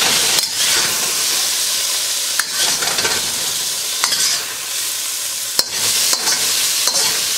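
Chicken pieces sizzling in hot oil in a wok over high heat. A metal spatula scrapes across the wok and clinks against it several times as the chicken is scooped out.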